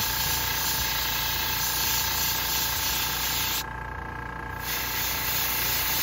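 Iwata airbrush spraying paint in a steady hiss of air. It stops for about a second a little past halfway as the trigger is let off, then starts again.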